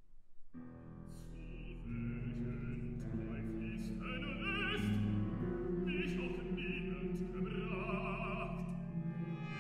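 Solo operatic baritone singing with vibrato over a symphony orchestra. The orchestra comes in about half a second in, with low brass and a held very low note beneath.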